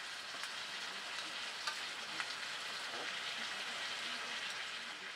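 A pan of kernels sizzling steadily over the fire while being stirred with a metal ladle, with a few light clicks from the ladle against the pan. The sizzle fades out at the very end.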